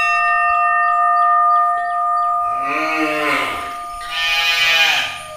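A cow mooing twice, each long low call rising and then falling in pitch, over a steady ringing tone that fades out as the first moo begins.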